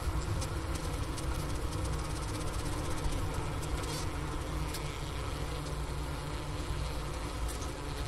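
A honey bee colony humming inside its winter hive, recorded at the hole in the inner cover: a steady low hum with a few faint clicks scattered through it.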